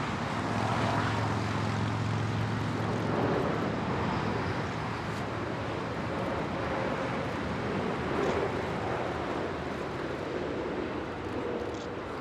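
Boeing 747-8 airliner on final approach, its four GEnx-2B turbofans making a steady rushing jet noise, with a low drone in the first few seconds.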